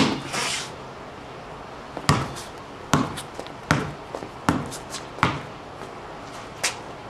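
Basketball dribbled on a concrete court: five bounces in an even rhythm, a little under a second apart, starting about two seconds in, then one more near the end.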